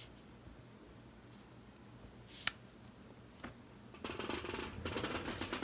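Handling of small metal parts and tools on a workbench: one sharp click about two and a half seconds in and a lighter tap a second later, then a dense rustling, crackling sound from about four seconds in.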